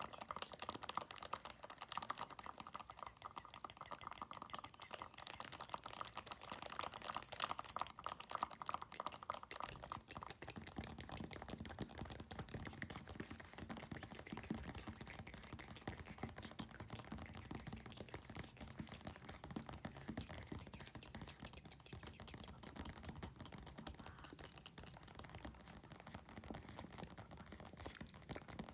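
Very fast fingernail tapping, a dense stream of small clicks, layered with mouth sounds. About ten seconds in the tapping changes to a lower, duller tone.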